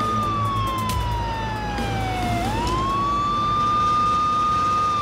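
Police van's siren wailing. The tone falls slowly for about two seconds, sweeps quickly back up, holds high, and begins falling again at the end, over a low rumble of traffic.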